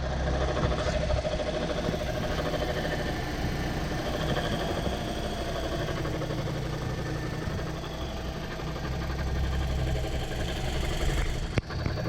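Toyota Corolla's engine running steadily.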